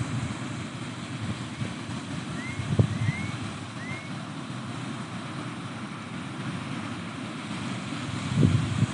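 Pacific surf washing against the seawall shore, a steady wash of noise, with wind buffeting the microphone in low thumps about three seconds in and near the end. A few short chirps sound between about two and four seconds in.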